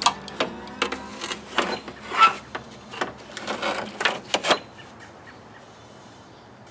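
Irregular knocks and clatter of parts being handled and set down under a car's hood, about a dozen sharp strikes over the first four and a half seconds, some with a brief ring, then only faint background noise.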